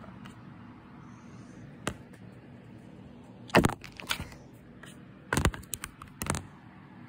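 Several sharp knocks and clicks in short clusters, one just before two seconds in, more about halfway through and near the end, over a low steady hum.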